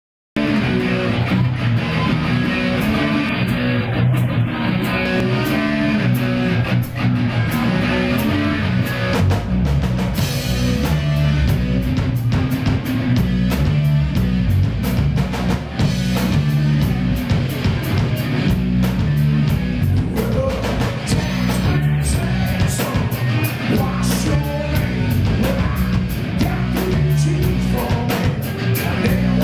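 Rock band playing live: electric guitars through Marshall amplifiers over a drum kit keeping a steady beat.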